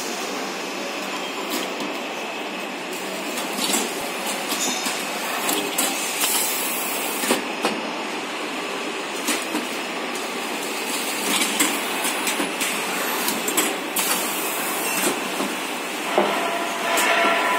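Automatic tape-roll packing machine running: a steady mechanical noise broken by irregular clicks and knocks from its moving parts, louder for a moment near the end.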